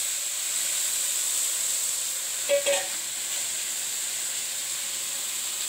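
Chopped vegetables and onion frying in oil in an iron kadhai, a steady sizzle, with one brief sharper sound about halfway through.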